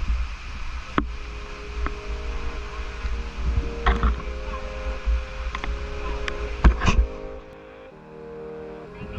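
Background music with steady held tones, over a low rumble and a few sharp knocks, the loudest about four and seven seconds in; the rumble drops away near the end.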